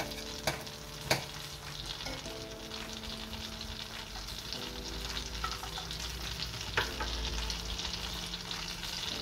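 Melting butter sizzling and bubbling steadily in a frying pan on low heat, growing slightly louder. Chopped garlic is pushed off a knife into the pan, with a few sharp clicks about half a second in, at about one second and near seven seconds.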